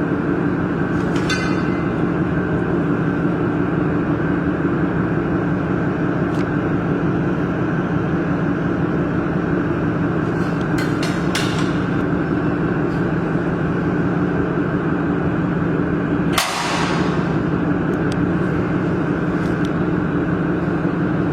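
Steady machine hum, with a few light clicks and one short sharp hiss about sixteen seconds in.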